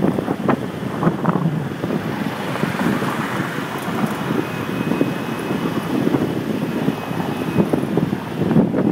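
Wind buffeting the microphone of a moving vehicle, over steady road and traffic noise.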